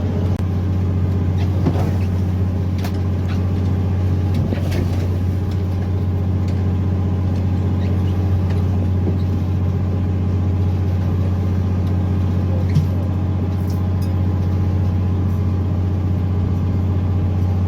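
A fishing boat's engine running steadily with a deep, even hum, a few faint clicks and one sharp knock about thirteen seconds in.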